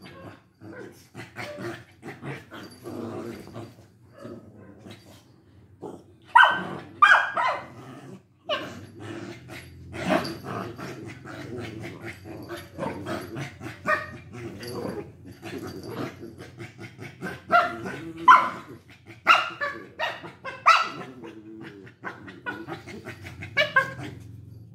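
Two Lhasa Apsos tussling, growling steadily with short, sharp barks and yaps breaking out in clusters. The barks grow louder from about six seconds in.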